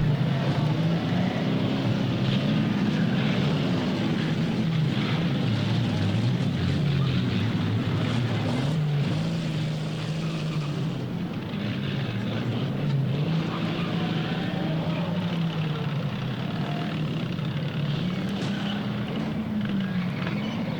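Stock car engines running on a 1960s short track, their pitch rising and falling as the drivers rev and back off, over a constant haze of engine and track noise.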